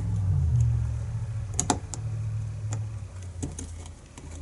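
A few light metallic clicks and taps from a padlock and its key being handled, over a steady low hum.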